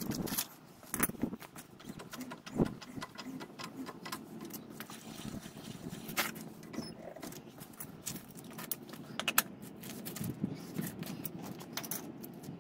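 Scattered sharp metallic clicks and clinks of hand tools on the van's wheel nuts and being handled, over a faint steady low hum.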